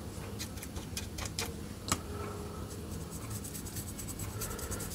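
A paintbrush working thinned paint onto a small, dry basswood carving: soft brushing on the wood with a run of faint ticks, one a little sharper about two seconds in.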